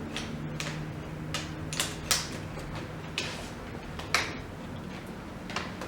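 Plastic screen bezel of a Lenovo G510 laptop being handled and pressed back onto the lid: several sharp, irregular plastic clicks and snaps over a faint steady hum.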